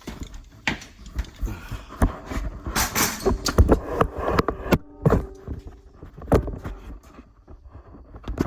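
Irregular clanks, knocks and rattles of tools and metal parts being handled, with a noisier rummaging stretch in the middle and a faint steady hum underneath.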